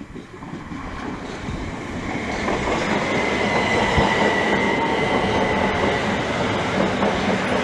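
Class 375 Electrostar electric multiple unit arriving at the station. Its running noise grows louder over the first few seconds and then holds steady, with a high steady tone from about two seconds in.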